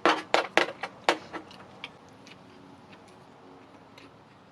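A person's voice in a quick run of short bursts for about a second and a half, then only faint small clicks.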